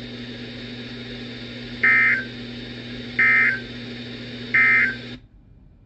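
Emergency Alert System end-of-message (EOM) signal: three short bursts of warbling digital data tones, evenly spaced about a second and a half apart, over a steady radio hiss and hum. The broadcast audio cuts off abruptly shortly after the third burst.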